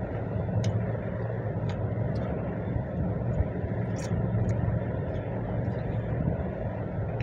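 Steady low hum throughout, with a handful of short wet clicks and smacks from hands mixing rice and curry and mouths chewing.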